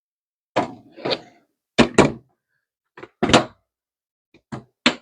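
A run of about eight dull thunks and knocks, some in quick pairs, with silence between them.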